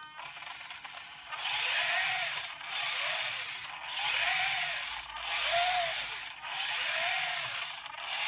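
InMoov robot's stomach section tilting back and forth on its motor-driven side screw pistons. It makes a repeated rubbing noise, beginning about a second in, with one stroke about every second and a quarter. Each stroke carries a short motor whine that rises and falls. The screws are running without grease, yet smoothly.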